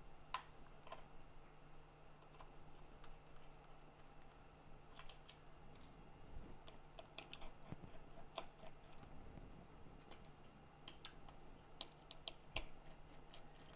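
Faint, scattered small clicks and ticks of a precision screwdriver and tools on the tiny screws inside an iPhone 7 as they are taken out, over a low steady hum.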